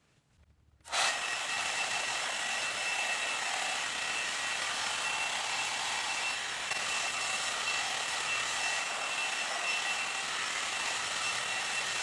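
A 2-in-1 blowdryer brush switches on about a second in and runs steadily, a rushing fan noise with a high steady whine.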